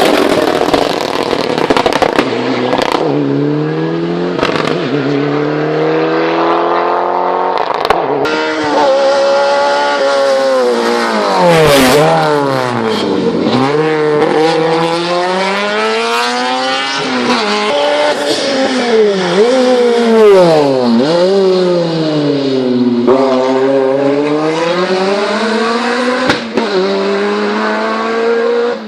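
Hill-climb race car engine working hard. The pitch climbs under acceleration, drops suddenly at gear changes, and sinks low several times under braking into corners before climbing again. A few sharp cracks stand out, one of them loud.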